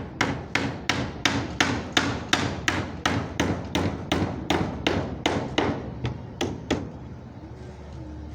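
A hammer driving nails into wooden boards with quick, even blows, about three a second, that stop about seven seconds in.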